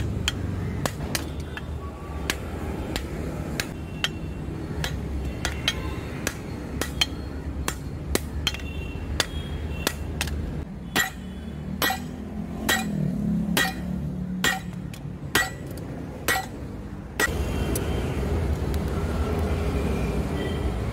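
Hand hammer beating a red-hot leaf-spring steel billhook blade on an anvil, a steady run of blows about two a second, the later blows louder with a metallic ring. Near the end the blows stop and a steady rushing noise of the coal forge fire follows.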